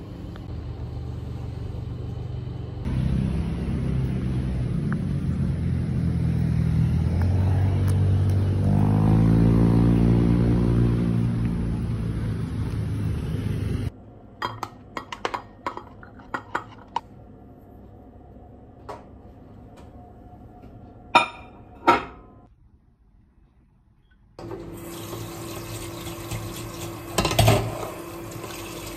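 Elevator car riding: a steady low rumble with a humming tone that bends upward in pitch. Then kitchen handling sounds: light clicks and knocks of a plastic container against dishes, two sharp clatters of crockery, a short hush, and a tap running into a stainless steel sink while dishes are washed.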